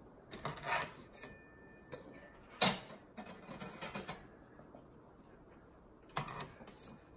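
Metal spatula scraping and clicking against a wire rack as bread-slice pizzas are lifted off and set on a plastic plate. A few short scrapes and clicks, the sharpest about two and a half seconds in.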